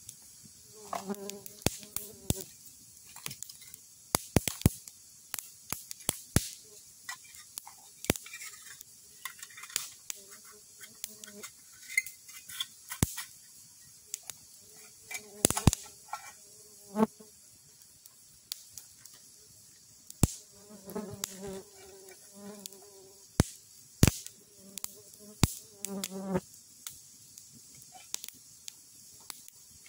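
Flies buzzing close by in passes of a second or two, several times, over a wood campfire crackling with sharp pops.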